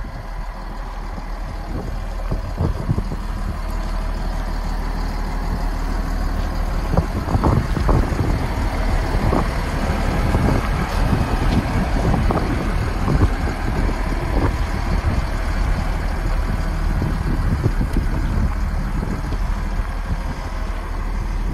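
Caterpillar 950G wheel loader's diesel engine running steadily, growing a little louder over the first few seconds and then holding.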